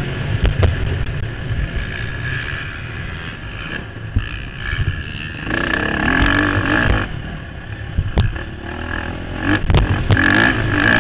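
Motocross bike's engine running hard and revving up and down while it is ridden over a bumpy dirt track, heard from a helmet camera with heavy wind rumble on the microphone. The engine swells louder about halfway through and again near the end, and a few sharp knocks come from the bike hitting bumps.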